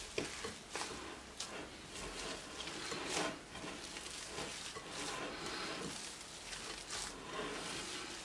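Hands kneading and squeezing a soft mashed-potato mixture in a glass bowl: repeated wet squelches, roughly one or two a second.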